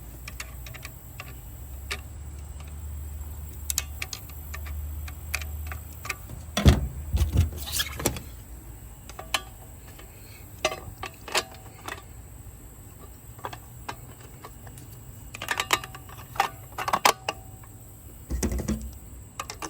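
Scattered metallic clicks, clinks and knocks of tools and small metal parts being handled, with a steady low hum for the first several seconds.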